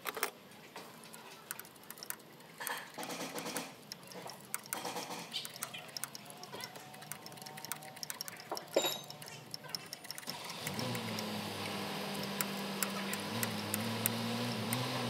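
Metal hand tools clicking and clinking against the engine's brackets and bolts as a wrench is worked around the pulleys. About two-thirds of the way through, a steady low mechanical hum starts and keeps going.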